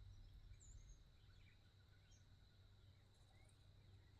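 Near silence outdoors, with a few faint, brief bird chirps and a faint steady high-pitched tone throughout.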